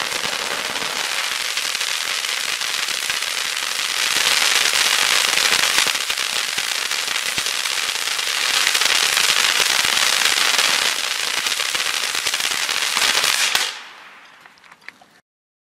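Sunwing 'Classy' ground firework fountain in its crackling finale: a dense, continuous spray of hissing and crackling. It cuts off sharply near the end, trailing into a few scattered last crackles.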